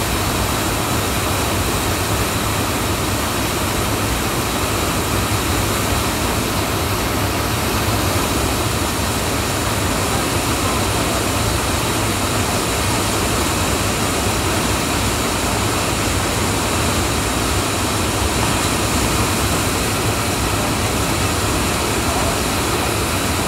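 Whitewater of the Clark Fork River at high flow rushing over a surfing wave, a loud, steady, even noise.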